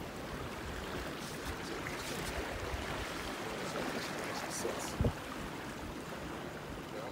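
Steady rushing noise of water at the shore, with a single short thump about five seconds in.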